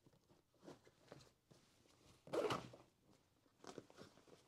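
Faint handling noise of gear being packed into a bag: light rustles and small knocks, with one louder rustling scrape about two and a half seconds in.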